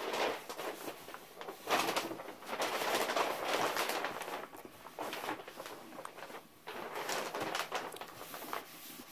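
Paper towel wet with denatured alcohol being rubbed back and forth over a sanded 3D-printed body panel, a rough wiping noise in uneven strokes that swell and fade.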